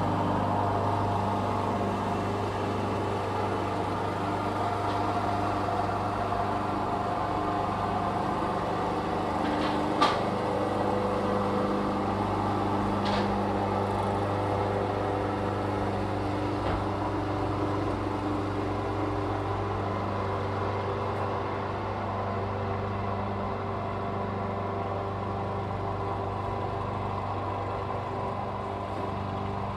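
Lawn mower running steadily with an even hum, with one sharp click about ten seconds in.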